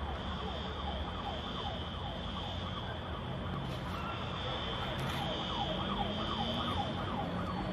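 A siren sounding in quick, repeating pitch sweeps, growing clearer about three seconds in, over a steady low rumble.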